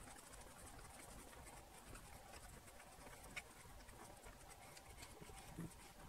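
Faint rubbing and rustling of a tissue wiped over a rubber keypad sheet with carbon contact pads, as it is cleaned with acetone, with a light click about three and a half seconds in.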